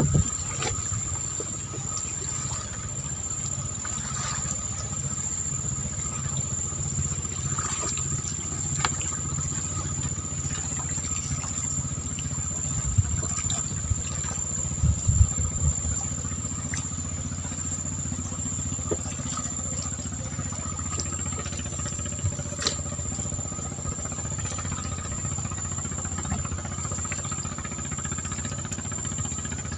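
A steady low engine-like drone with a regular pulse, under a constant high insect trill, with scattered small clicks and knocks.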